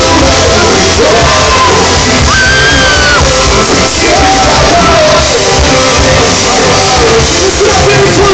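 Live pop-punk band playing loud with guitars and drums, the lead singer's voice over the top, heard from the crowd in a large echoing hall.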